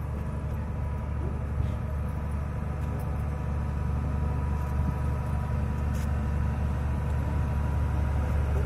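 Narrow-gauge toy train approaching along the track: a steady low rumble with a faint whine, growing gradually louder as it comes nearer.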